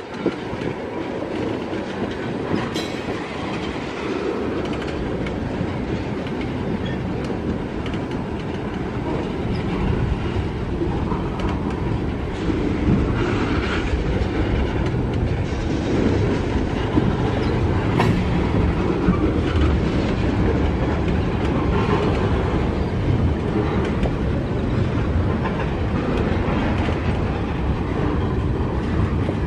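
Loaded freight cars (tank cars, boxcars and a lumber flatcar) rolling past: a steady noise of steel wheels on the rails, with a couple of sharp clanks, about 3 seconds in and again past the middle.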